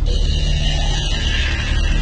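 Horror film score: a deep, steady low drone under a hissing, grating noise layer.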